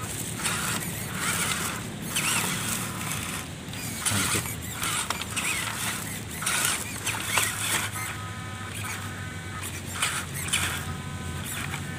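Electric drivetrain of a WPL C24 RC crawler pickup running as it crawls through dry straw and dirt, with a thin whine coming in over the second half, and bursts of crackling and rustling as the tyres push through the dry stalks.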